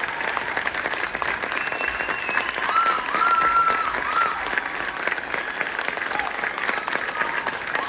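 Audience applauding, a steady clatter of many hands clapping, with voices calling out over it about three seconds in.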